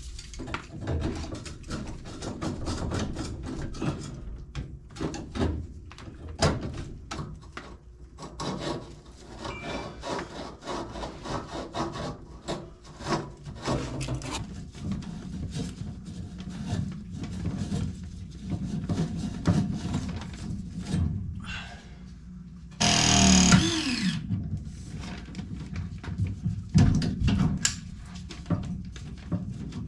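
Hand tool work: repeated scraping and rubbing strokes with many sharp clicks and knocks, broken about two-thirds of the way through by a short, louder whirring burst that falls in pitch.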